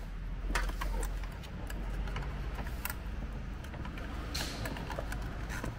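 Scattered light clicks and rubbing of a wiring harness being pushed up through a plastic fuse box from underneath, over a steady low hum.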